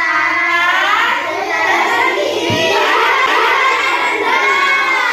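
A class of young children singing together in unison, high voices in a continuous sung phrase.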